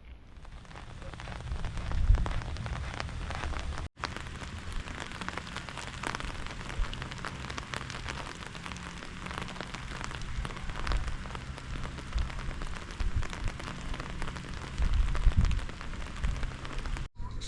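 Rain falling in a dense patter of drops, with low rumbles about two seconds in and near the end. The sound drops out briefly twice.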